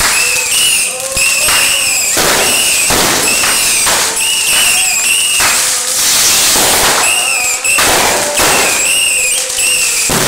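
Fireworks going off in quick succession: shrill whistles one after another, each lasting under a second, over constant crackling and bangs.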